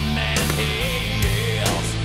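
Heavy rock music with electric guitar over held low bass notes.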